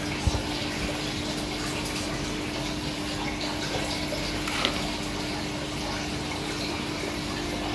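Aquarium water pump or filter running, a steady hum under a constant rush of moving water. A sharp knock comes just after the start.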